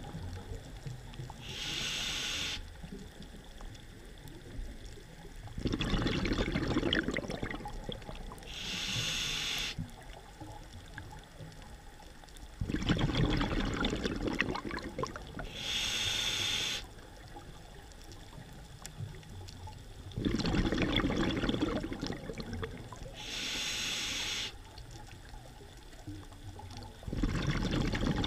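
A scuba diver breathing through a regulator underwater, four full breaths about seven seconds apart. Each breath is a hiss as the demand valve opens on the inhale, then a few seconds later a louder, lower bubbling rush as the exhaled air escapes. The bubbling is the louder of the two.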